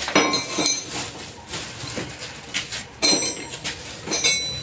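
Metal hand tools, wrenches and sockets, clinking and clanking as they are handled. There are several sharp metallic clinks, each ringing briefly, loudest a little after the start and about three seconds in.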